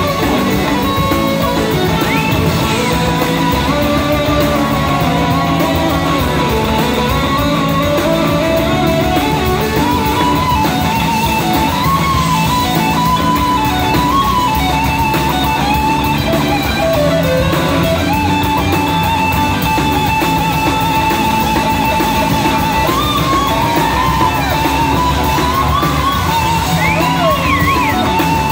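Live rock band playing: a lead on an SG-style electric guitar played with a slide, its notes gliding up and down, over drums and a second electric guitar.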